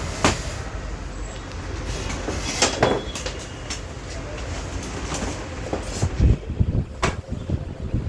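Powerbilt 8 kg electric demolition breaker running, a steady mechanical hammering noise with a few sharper knocks.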